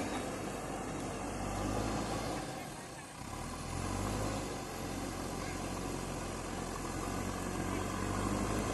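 Diesel engine of a JCB 3DX backhoe loader running steadily under work, dropping briefly about three seconds in and then picking up again.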